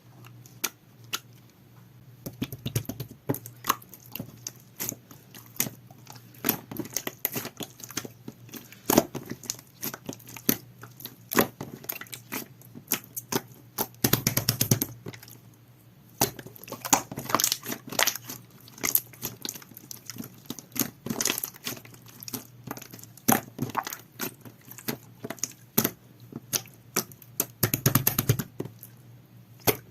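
Clear jelly-textured slime being squished and stretched by hand, giving a constant run of small sticky clicks and pops from trapped air, with a brief lull about halfway through.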